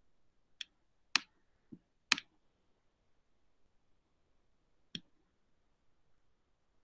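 Computer mouse button clicking: five scattered sharp clicks, the two loudest about a second apart, the last one a few seconds later.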